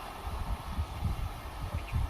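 Train running at a distance: a low, uneven rumble with a steady hiss above it, and wind gusting on the microphone.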